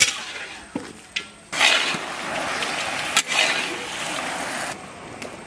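Cooking noises from a pot of chicken masala on the fire: a few clinks, then about three seconds of rushing noise that starts and stops abruptly.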